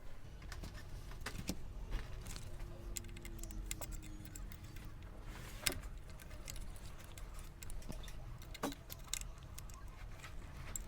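Scattered light clicks and taps of new electrolytic capacitors being handled and pushed into a TV power supply circuit board, with a sharper click a little past halfway and another a few seconds later.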